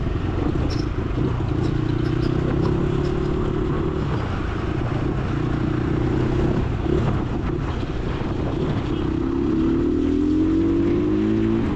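Dirt bike engine running while riding, holding a fairly steady pitch and then rising as it accelerates near the end.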